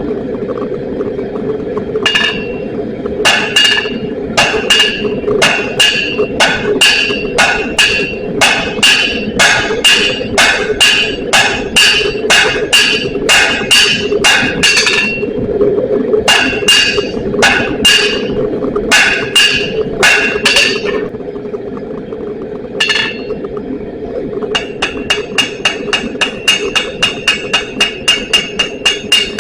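Blacksmith's hammer forging steel on an anvil, each blow ringing, at a steady pace of one to two blows a second. The blows pause about three-quarters of the way through, then resume as a faster run. A steady drone runs underneath.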